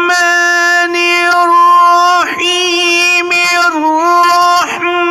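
A male qari reciting the Qur'an in a melodic tajweed style, holding long, high notes that bend gently, with brief breaks about two seconds and four and a half seconds in.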